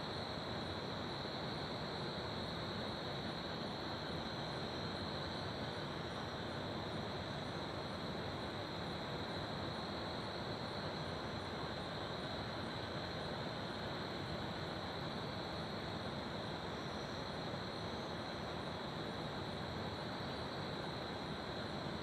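Steady rush of flowing river water with a continuous high-pitched cricket trill over it.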